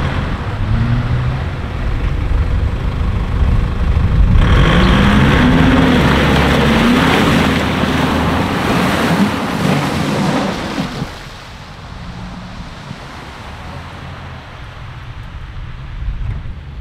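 Off-road 4x4's engine revving, its pitch rising and falling, as the vehicle drives through mud and water. A loud rush of churning and splashing starts about four seconds in and stops abruptly around eleven seconds. After that the engine runs on more quietly.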